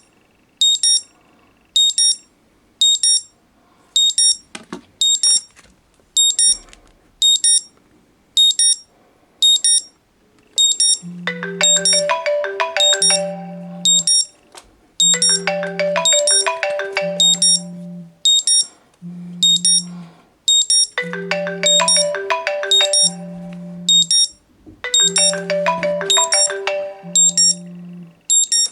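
Two phones alerting at once: an alarm of short, high beeps in pairs about once a second, joined about eleven seconds in by a repeating melodic ringtone with a low bass note, from an iPhone 4S on iOS 6 and a Sony Xperia S.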